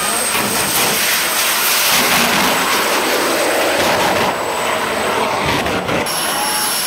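Jet engine on a jet-powered port-a-john running, a loud, steady rush of noise.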